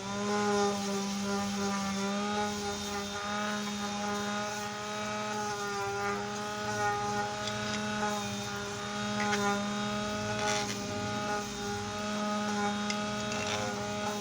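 Electric sander running steadily with an even motor hum, smoothing small wooden cutouts with the finest grit as the final sanding step.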